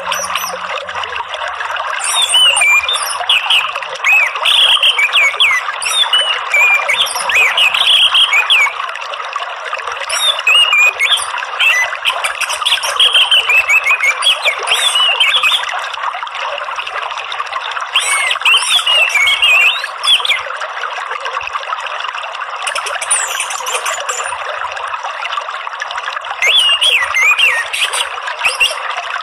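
Orange-headed thrush (anis merah) singing in bouts of quick, varied high phrases, with pauses of a second or two between bouts, over a steady sound of running water.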